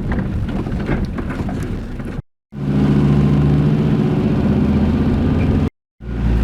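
A ute's engine running as it drives along a rough track. At first there is a rumble with scattered knocks and rattles; after that comes a steady, stronger engine hum. The sound drops out twice for a moment at cuts.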